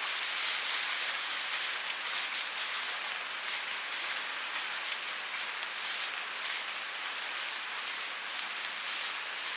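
Steady rainfall, an even hiss of many drops pattering on a surface.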